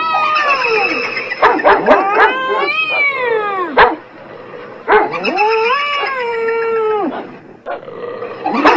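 A cat yowling and a dog barking and howling in turn: three long cries that rise and fall in pitch, with a few short sharp barks between the first two cries.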